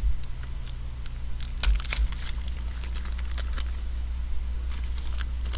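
Baseball trading cards being flipped through and handled: a run of light clicks and snaps of card stock, busiest about two seconds in.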